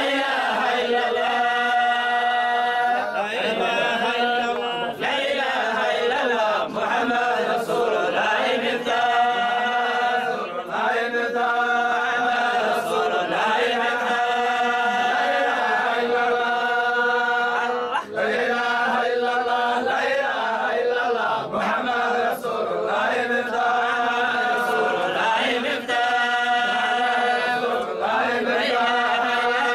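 A group of men's voices chanting a Sufi dhikr of the Zayla'i order together, in long held notes and repeated phrases.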